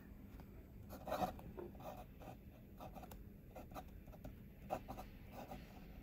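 Fountain pen with an elastic extra-fine nib scratching faintly across paper in short strokes as a word is written, with a slightly louder stroke about a second in.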